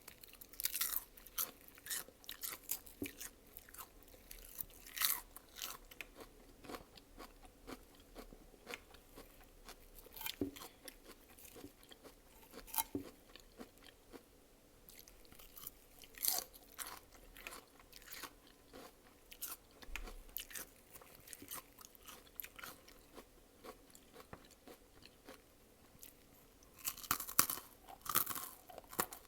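Close-miked chewing and crunching of food: an irregular run of short crunches and wet mouth clicks, busiest near the end.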